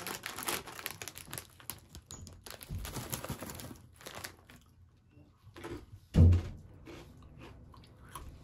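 Foil snack bag crinkling and rustling as it is handled. About six seconds in comes one loud thump, followed by the crunching of a crunchy corn stick being bitten and chewed.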